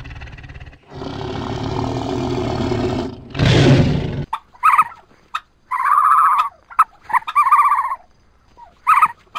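Tiger growling in long, low, rough stretches, with a louder roar about three and a half seconds in. From about four seconds on there is instead a string of short, higher-pitched animal calls with gaps between them.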